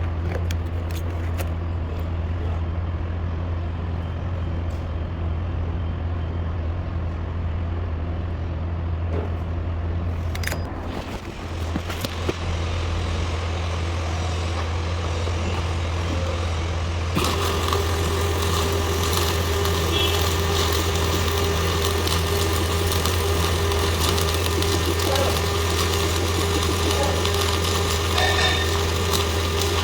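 A steady low machine hum, with a few sharp clicks. Just over halfway in, a MIG/CO2 welding arc strikes and crackles and hisses continuously.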